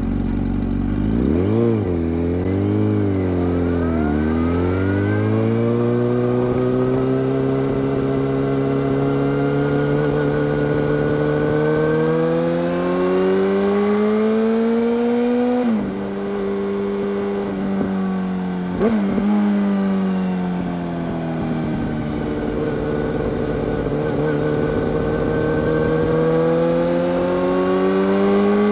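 2005 Yamaha YZF-R1's inline-four sport-bike engine through a full-system Yoshimura exhaust. It is blipped a few times, then pulls with revs climbing slowly and steadily. The revs drop suddenly at a gear change about sixteen seconds in and dip again a few seconds later, then build steadily once more.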